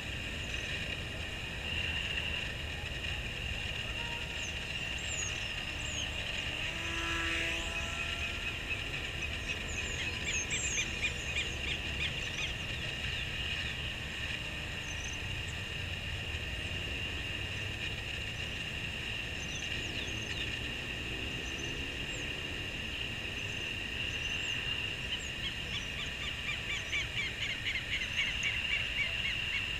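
Open-air ambience: a steady high-pitched drone with a low rumble beneath it and short bird chirps scattered over it. A rapid trill of repeated chirps comes about ten seconds in and again near the end.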